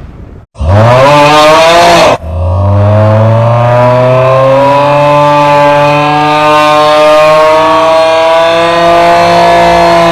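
A very loud, drawn-out 'aaaahhh' vocal snore sound effect. First comes a short burst rising in pitch for under two seconds, then after a brief break one long, steady 'aaaahhh' for about eight seconds.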